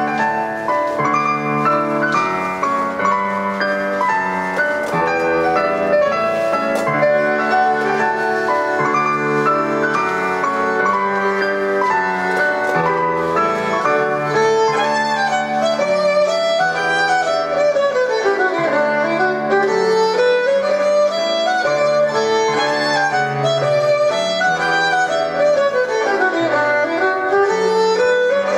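Scottish country dance music for a 32-bar strathspey: a bowed-string melody of quick running notes over piano accompaniment.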